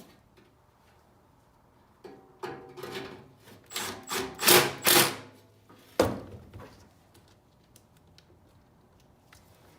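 Clatter of hand work on blower parts: a run of scraping and rustling handling noises, loudest about four and a half and five seconds in, then one sharp knock at about six seconds.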